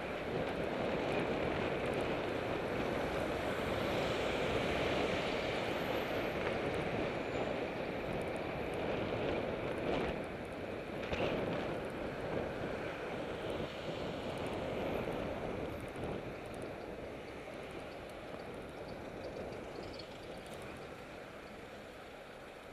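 Wind rushing over a bicycle-mounted camera's microphone while riding, mixed with road and city traffic noise. It grows quieter over the last several seconds.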